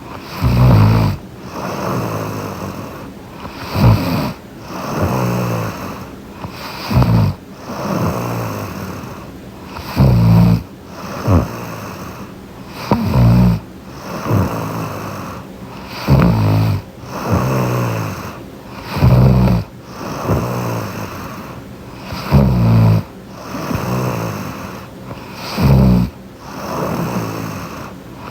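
A young woman snoring in her sleep close to the microphone, one loud snoring breath about every three seconds in a steady rhythm.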